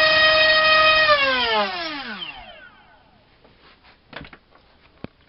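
RCinpower QAV2206 1900KV brushless motor spinning a 5045 prop on a three-cell pack, running at a steady high whine; about a second in the throttle is cut and the whine falls in pitch and fades as the prop spins down over about a second and a half. A couple of small knocks follow near the end.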